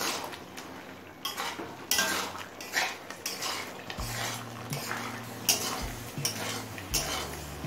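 A spatula stirring and scraping a thick shapla (water lily stem) and fish-head curry around a metal wok. The scrapes against the pan are irregular, about one or two a second, as the curry cooks down on high heat to dry off its water.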